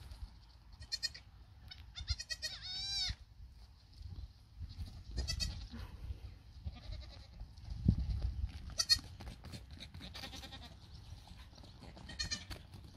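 Miniature goat kids bleating in short high-pitched calls, several in quick succession about two seconds in and then singly every few seconds, over a low steady rumble.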